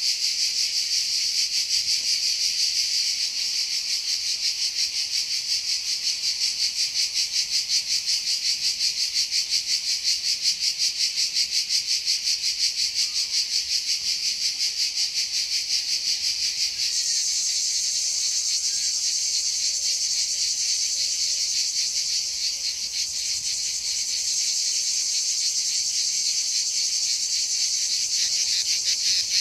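Loud, continuous insect chorus: a dense, high shrill buzz pulsing very rapidly, its pitch stepping higher just past halfway.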